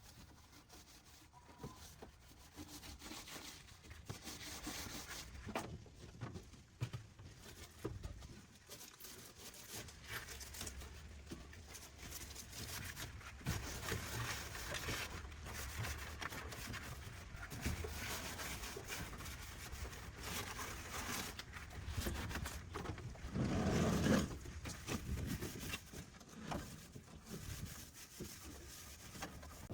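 Irregular rubbing and scraping from hand work, many short uneven strokes, with one louder stretch near the end.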